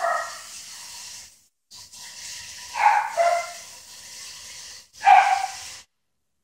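A pet dog barking about four times (once at the start, twice around the middle, once near the end) over the steady rush of a kitchen sink tap running. All sound cuts off abruptly shortly before the end.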